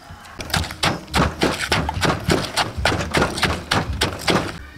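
Wooden pestle pounding garlic, chili and dried shrimp in a large mortar, in quick regular strokes of about four a second, grinding the seasoning paste for papaya salad. The strokes begin about half a second in and stop just before the end.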